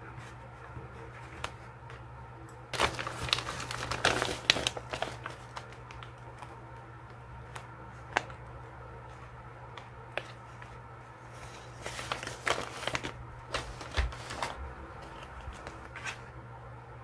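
Paper rustling and crinkling as a crinkly pouch full of sticker sheets is opened and rummaged through, in two bursts, with a few single light ticks from metal tweezers against the page in between.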